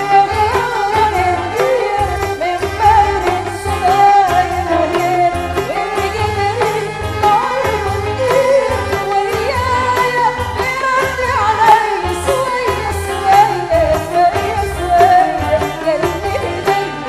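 Qasidah modern band playing live: a melody sung with gliding, ornamented lines over a steady bass and drum beat.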